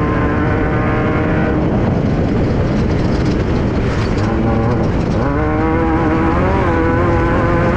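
Class 5/1600 race car's air-cooled 1600cc VW flat-four engine running hard under load, over constant rough noise from the car on the dirt track. The engine note drops back into the noise for a few seconds, then climbs again about five seconds in and holds high.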